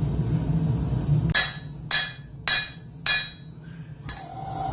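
Four hammer blows on hot steel on the anvil, about half a second apart, starting about a second and a half in, each with a short metallic ring: forging a hammer-eye hot punch.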